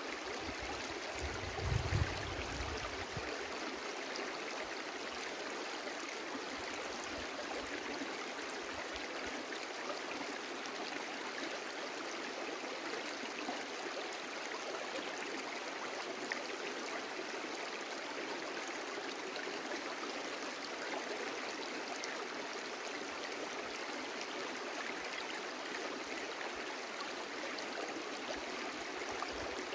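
Stream water flowing steadily, an even rushing sound. A brief low thump about two seconds in.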